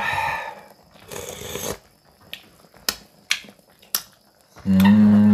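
Hot galbitang broth slurped from a spoon, twice in short bursts. Then come a few sharp mouth or spoon clicks, and near the end a long, loud hummed 'mmm' while tasting.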